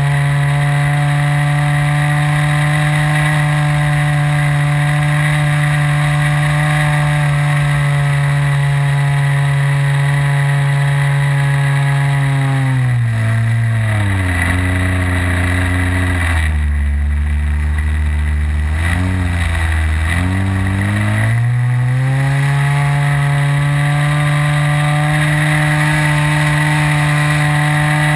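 Model plane's OS 55 AX two-stroke glow engine and propeller, heard from on board, running steadily at high revs. About halfway through the engine speed drops and its pitch falls for several seconds, then it climbs back up to the steady high drone.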